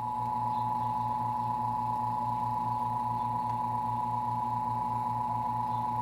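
Mondial Maxi Power 30 fan motor running out of its housing on the bench: a steady electric hum with a higher steady whine above it. It runs below its rated current, the sign that its winding is not shorted and is still good for use.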